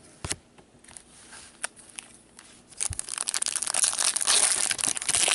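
Foil card-pack wrapper crinkling as it is torn open and crumpled, starting about three seconds in, after a couple of light taps.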